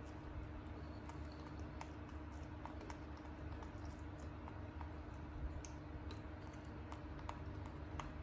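Soft, irregular small clicks and smacks of a baby macaque chewing and eating noodles with its fingers, over a steady low hum.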